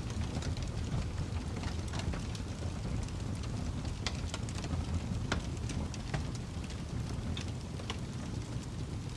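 Wood fire crackling: a steady low rumble of burning logs with irregular sharp pops and snaps, a few louder ones about four and five seconds in.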